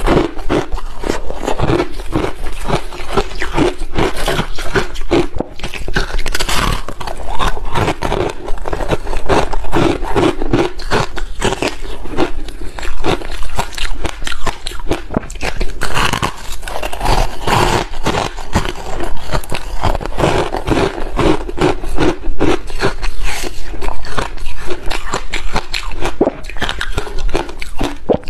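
Frozen flavoured ice, passion-fruit ice and crumbly purple ice, being broken apart and bitten and chewed close to a lapel microphone: dense crackling crunches one after another.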